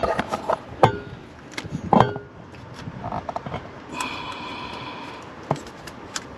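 Tape being pulled off the roll and wrapped around a wiring plug connector: scattered clicks, crinkles and handling noises, with a brief high squeal about four seconds in.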